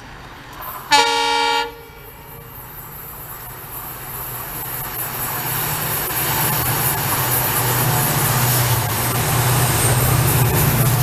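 WDP-4D diesel-electric locomotive sounds one short horn blast about a second in. Then its two-stroke EMD diesel engine and the rolling noise of the express grow steadily louder as the train approaches at speed and passes close by.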